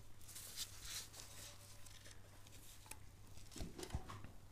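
Faint rustling and light metallic ticks of gloved hands and a small tool working among the valve springs and retainers of a BMW M50 cylinder head, with two soft knocks near the end.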